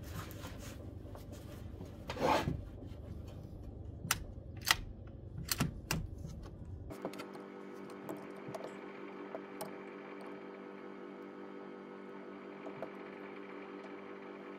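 Handling sounds of a shooter settling behind a bolt-action rifle on a shooting rest: a few rustles and several sharp clicks over the first six seconds. Then a steady hum with several pitches at once while he aims.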